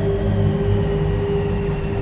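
Dark horror ambience: a dense low rumbling drone with a single steady mid-pitched tone held over it.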